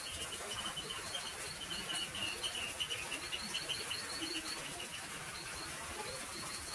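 A small bird chirping: a quick run of short, high chirps at two pitches, several a second, fading out a little past halfway, over a steady hiss.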